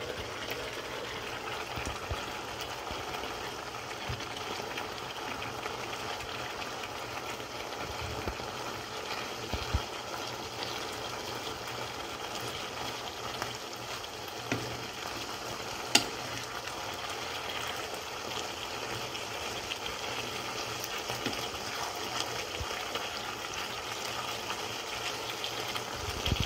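Spinach and sardines sizzling steadily in a frying pan, with a few sharp taps of a wooden spatula stirring the leaves. The loudest tap comes about two-thirds of the way through.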